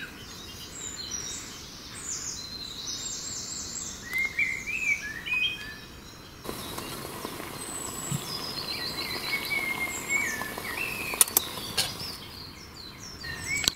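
Woodland birdsong: several birds singing short chirps and quick descending trills over a steady background hiss, with a few sharp clicks a little past the middle.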